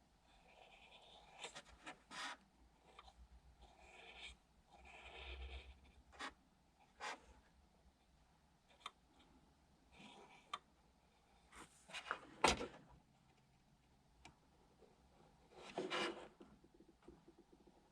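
Faint scattered handling noises from small tools and parts on a workbench: light clicks, taps and short rustling scrapes, with a sharper click about twelve seconds in and a longer rustle near the end.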